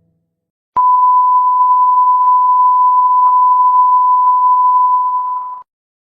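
A single steady, loud, high-pitched electronic beep tone that starts suddenly about a second in and cuts off about five seconds later, with faint ticks about once a second under it.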